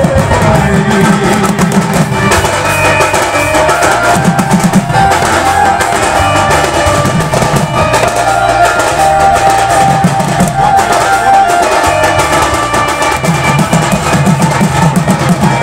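Live Odia folk music: slung barrel drums (dhol) beaten in a fast, steady rhythm under a melody of held notes.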